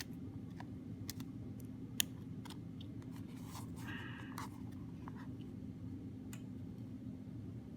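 Small clicks and scraping of an iPod 5th generation's case as its front is pressed back onto the back shell to clip the tabs into place, with one sharp click about two seconds in and a short scrape near the middle, over a steady low hum.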